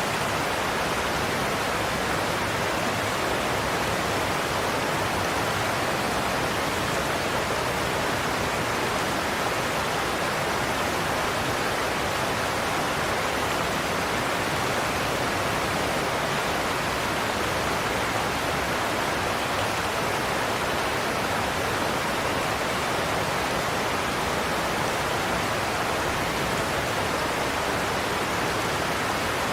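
Godafoss waterfall: water pouring over the cliffs in a steady, unbroken rush of noise, weighted to the middle range with little deep rumble.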